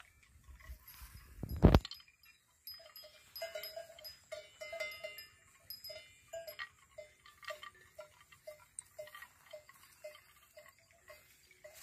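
Small cowbell on a resting cow's neck clinking in short, irregular tinkles, two or three a second. A single sharp knock, the loudest sound, comes about one and a half seconds in.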